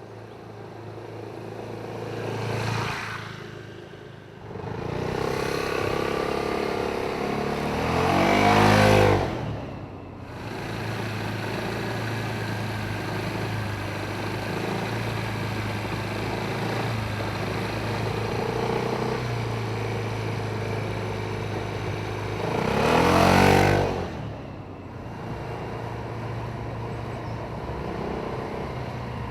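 BMW C400X scooter's single-cylinder engine running, with a steady hum and loud swells about nine and twenty-three seconds in, where the pitch bends down as it sweeps past.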